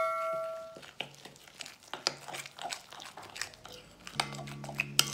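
A metal spoon scrapes and clicks against a glass mixing bowl in irregular strokes while stirring a thick flour-and-egg batter. A chime's ringing tone fades out over the first second, and a low steady hum comes in about four seconds in.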